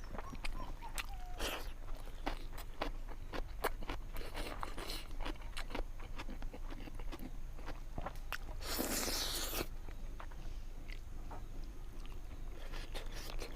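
Close-miked eating sounds: chewing, lip smacks and small wet mouth clicks of someone eating fish curry, with a brief louder rushing noise about nine seconds in.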